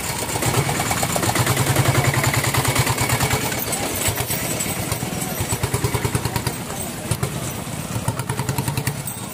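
Motorcycle engine running close by with a fast, even low putter, loudest a second or two in and then easing off a little.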